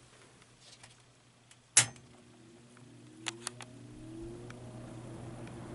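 Vintage Brentwood box fan switched on with a sharp click about two seconds in, then its motor starts with a hum and a rising whine as the blades spin up, growing steadily louder, with a couple of light clicks along the way.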